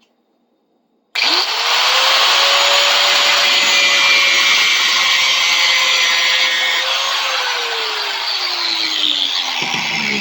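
Angle grinder starting up about a second in and cutting through the steel of a chipped screwdriver, a loud steady grinding with a motor whine. The whine drops steadily in pitch over the last few seconds.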